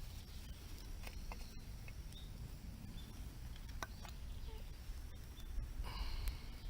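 Outdoor ambience: a steady low rumble with scattered faint clicks and a few short high chirps, and a brief hissing burst near the end.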